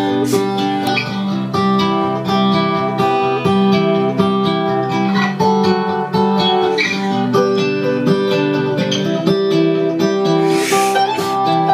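Acoustic guitar music played through an experimental homemade transistor audio amplifier running in class A, into a small loudspeaker box.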